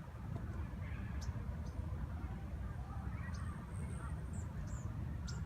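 Outdoor ambience: a steady low rumble with small birds giving short, faint, high chirps here and there, and a few faint lower calls.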